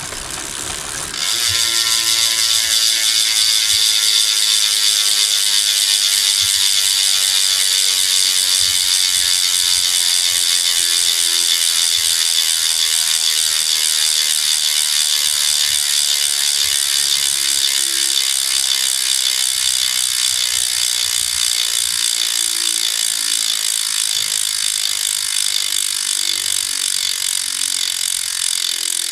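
Rear freehub of a carbon road wheel ratcheting as the wheel coasts: a fast, even buzz of pawl clicks that starts about a second in and slowly drops in pitch as the wheel slows. Relatively quiet for a freehub.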